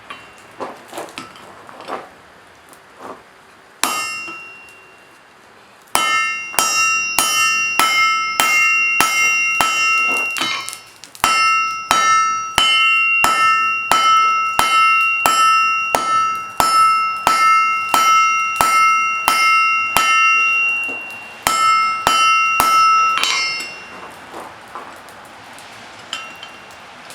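Hammer blows on an anvil at a steady pace of about two a second. The anvil rings at the same pitches after each blow. A few lighter scattered knocks come first, and the hammering stops near the end.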